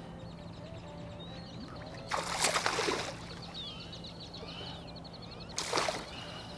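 A hooked striped bass splashing at the surface twice, a longer splash about two seconds in and a short one near the end. Birds chirp throughout.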